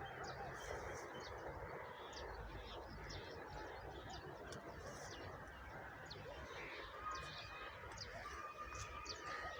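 Many small birds chirping and calling, short high chirps scattered throughout, with a few longer held notes in the second half, over a low steady background haze.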